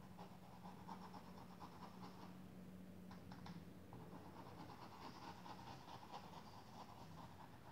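Faint, fast scratchy strokes of a paintbrush working white paint onto fabric, over a low steady hum.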